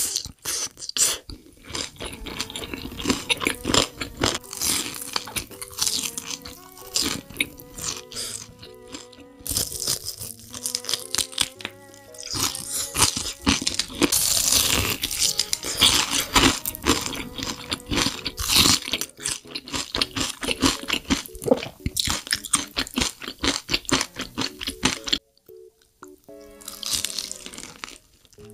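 Close-miked crunchy bites and chewing of fried chicken with a crushed Hot Cheetos crust, in dense crackly bursts that are heaviest in the middle, over soft background music.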